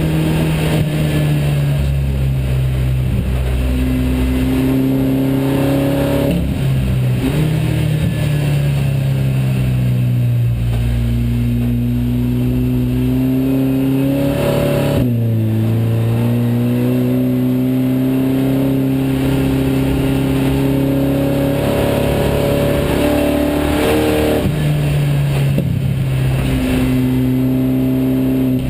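SEAT Leon Supercopa race car's turbocharged four-cylinder engine running hard under race conditions, heard inside the stripped cabin. The engine note holds and climbs through each gear, with sudden shifts in pitch at gear changes about six, fifteen and twenty-four seconds in.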